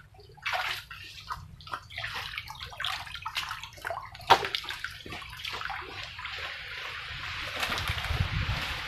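Shallow muddy water sloshing and splashing as someone wades and stirs in it, in uneven strokes with one sharp splash about four seconds in, then turning to a more even watery wash.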